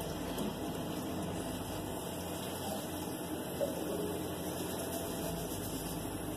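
Steady low hum of a Kenworth T800 dump truck's diesel engine as it drives past, muffled through a closed window and mixed with room hum and hiss.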